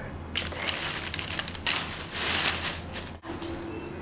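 Black plastic bag rustling and crinkling loudly as it is handled, loudest about two seconds in, then cutting off abruptly about three seconds in.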